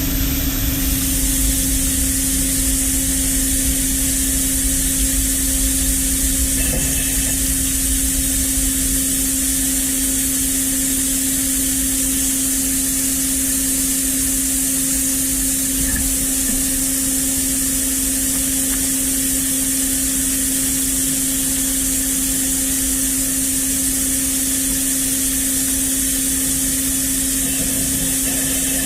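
Smart SL15 CNC lathe running a machining cycle on a 4130 steel chassis spud: a steady machine hum with a high, even hiss over it, unchanging throughout.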